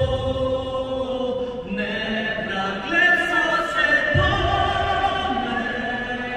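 A choir sings slow, held notes in chant-like music. A deep low swell comes in about four seconds in.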